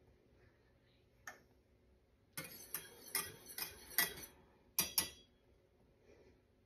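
Wire whisk clinking and scraping against a metal saucepan as boiling pectin and water is stirred, a single click about a second in, then a run of quick irregular clinks, and two sharp taps around five seconds.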